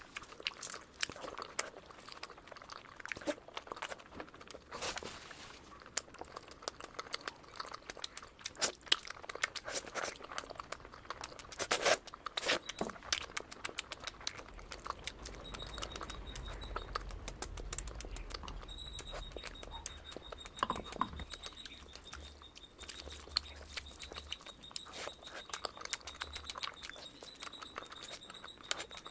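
Close-miked eating sounds of mutton fat curry with rice: chewing and lip smacking, a dense run of small wet clicks with a few louder ones.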